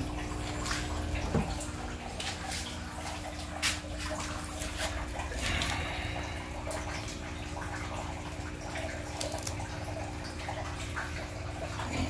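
Water from a garden hose running and splashing into a shallow concrete tank, with dripping, as the salt is rinsed off hatched brine shrimp in a hand net. A steady low hum runs underneath.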